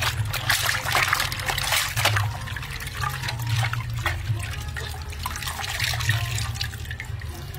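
Water splashing, sloshing and trickling as raw tripe is kneaded and squeezed in a metal basin of water and lifted out, water streaming off it back into the basin. The splashing is busiest in the first couple of seconds.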